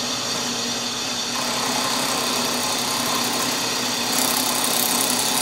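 Drill press running with a cutter taking a milling pass across a maple and ebony banjo bridge blank held in a jig. It is a steady machine hum with cutting noise, growing louder about a second in and again about four seconds in as the cut deepens.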